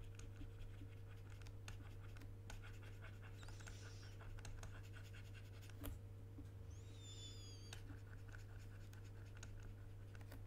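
Faint scratching and light ticks from brushwork at the computer, over a steady low electrical hum. There is a brief high chirp about seven seconds in.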